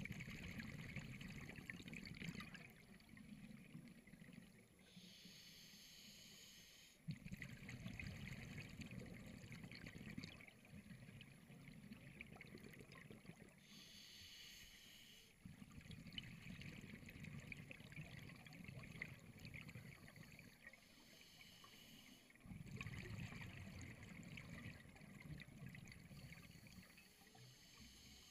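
Scuba diver's breathing through a regulator, heard underwater: long bubbling exhalations alternating with short hissing inhalations. There are four exhalations and three inhalations, all faint.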